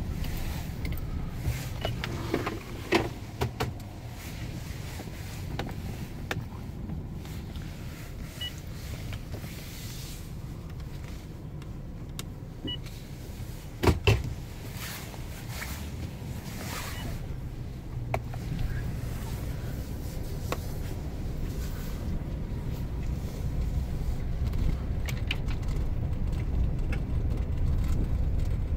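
Vehicle cabin noise of a car driving slowly over a rough dirt road: a steady low engine and tyre rumble, with occasional knocks and rattles, the loudest a double knock about halfway through.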